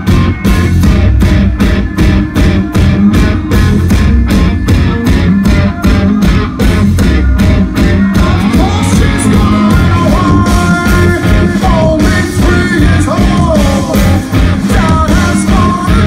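Live rock band playing loud: distorted electric guitars and drums driving a fast, even beat, with a man's voice singing over the band from about halfway through.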